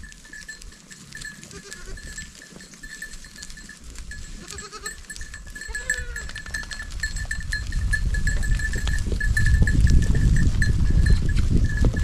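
A herd of goats on the move: a bell tinkles steadily, with a couple of short bleats about five to six seconds in. A low rumble grows louder in the second half as the herd passes close.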